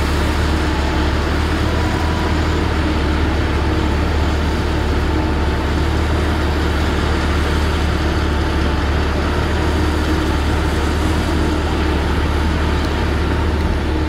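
Water well drilling rig running, its engine a loud, steady drone with a deep low rumble.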